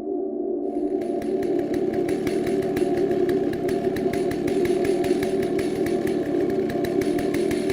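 Chainsaw running steadily: an even drone with a rapid, regular ticking that comes in about a second in.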